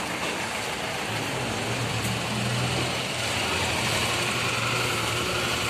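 A steady low mechanical hum, like an idling motor, that grows stronger about a second in, over constant background noise.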